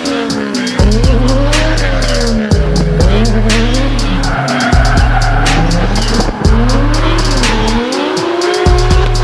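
Toyota JZX90 drifting: its engine revs up and down again and again as its tyres squeal, under music with a steady beat and heavy bass.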